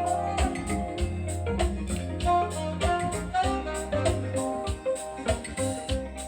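Music with guitar and a steady drum beat, played from a vinyl record on a Thorens TD 165 turntable through hi-fi loudspeakers.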